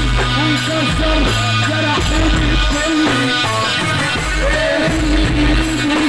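Live Egyptian sha'bi music, loud through a PA: a man singing into a microphone over an electronic keyboard with a pulsing bass beat.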